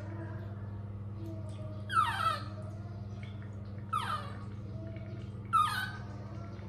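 A young pet monkey gives three high calls, each sliding steeply down in pitch, about two seconds apart. A steady low hum runs underneath.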